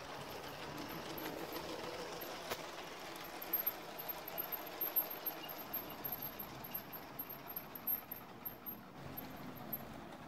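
Brick-built model train running on plastic track: a steady rumble from the motor and wheels, with irregular clicks as the wheels of the locomotive and coaches pass over the track joints, most frequent in the middle of the clip.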